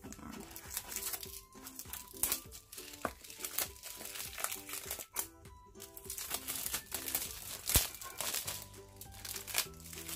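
Clear plastic wrap crinkling in irregular bursts as it is peeled off a sealed lipstick box, over background music.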